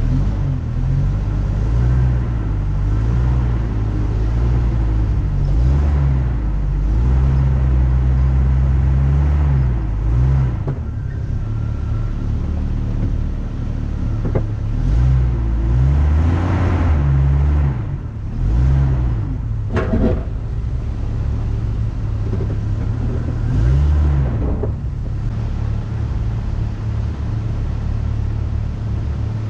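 Off-road vehicle's engine running on a rough trail, its pitch rising and falling again and again as it is revved up and eased off, with a sharp knock about twenty seconds in.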